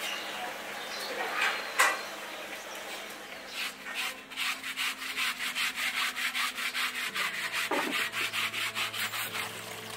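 River snails being scrubbed by hand in a steel sieve, their shells rasping against each other and the mesh in quick regular strokes, about four a second, starting about four seconds in. A single sharp knock comes a couple of seconds earlier.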